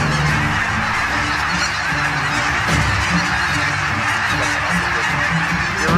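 A huge flock of geese calling overhead: a steady, dense din of many overlapping calls with no break.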